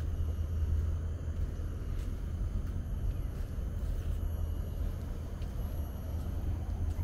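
Steady low rumble of open-air background noise, with no distinct sound standing out.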